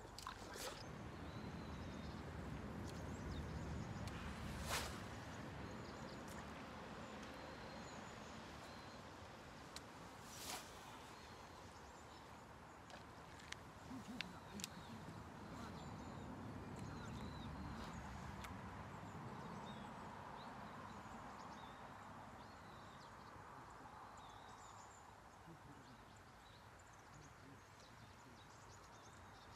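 Quiet outdoor ambience: a low, even background noise with a few sharp clicks, the clearest about five and ten seconds in, and scattered faint high chirps.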